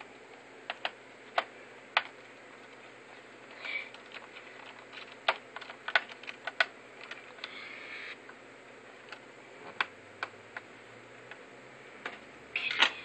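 Dell Studio 1737 laptop keyboard being pried at and handled: scattered sharp plastic clicks and clacks of keys and panel, with brief rubbing twice and a quick run of clicks near the end.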